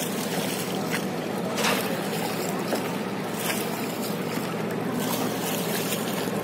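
Steady rush of river water and wind around a small wooden rowing boat under way.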